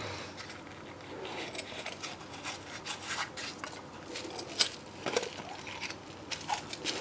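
Foam packing peanuts being pulled out of a plastic coin tube by a cotton-gloved hand: faint rubbing and scratching with scattered small clicks, one sharper click about four and a half seconds in.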